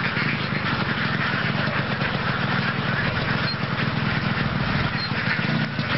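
A large flock of ducks quacking all at once, a dense unbroken chatter, with a low steady drone underneath.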